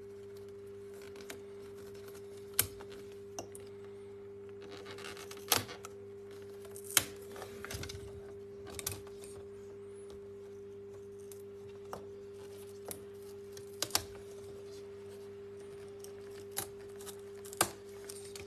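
Glued antenna cables being peeled off a laptop's plastic lid: scattered clicks and taps of small parts being handled, with a brief tearing, scratchy rasp about five seconds in. A steady low electrical hum sits underneath.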